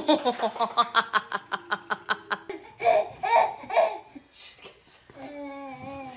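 Laughter in quick, even pulses, about seven or eight a second, for the first couple of seconds. Then a baby laughs in a few louder bursts and, near the end, makes long held cooing sounds.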